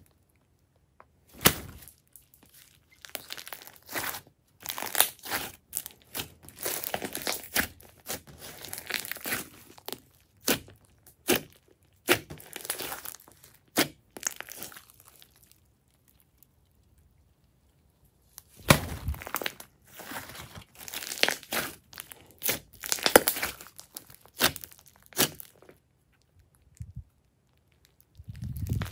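Hands squeezing, stretching and folding glossy slime: sticky crackling with sharp pops and clicks in irregular bursts, broken by a pause of a few seconds past the middle.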